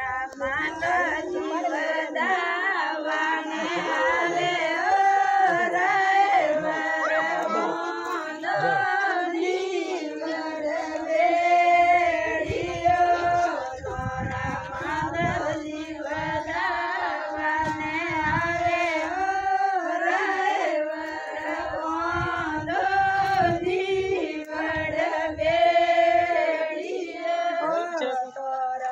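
A group of women singing a traditional Marwari wedding folk song (banna-banni geet) in chorus, the melody carried in long held phrases with little or no instrumental backing.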